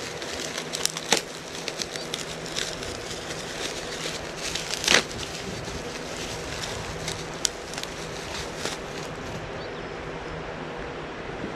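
Clear plastic packaging crinkling and crackling in the hands as a string trimmer's guard is unwrapped, in irregular bursts with a sharper crackle about five seconds in.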